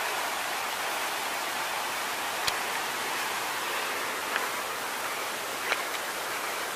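Steady rushing of a waterfall, an even hiss, with three light clicks in the second half.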